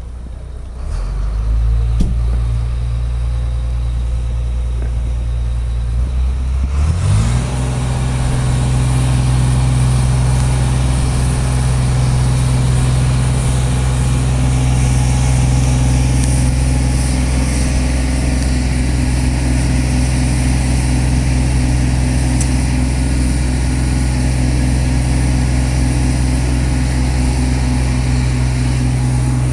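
Truck engine running loudly and steadily. It gets louder about a second in, and about seven seconds in it speeds up quickly to a higher, steady running speed.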